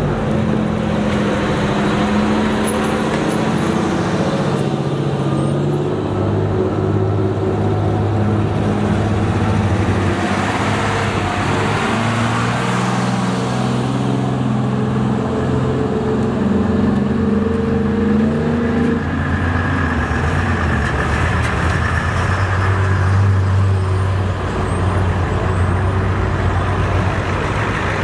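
Engines of a procession of fire trucks and emergency vehicles driving past one after another at low speed: a steady engine drone whose pitch shifts several times as each vehicle passes.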